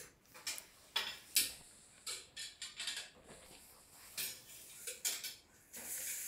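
Irregular sharp clacks and scrapes on a hard tiled floor, some in quick runs of three or four, as a rat snake is being caught. About six seconds in, a steady high hiss begins.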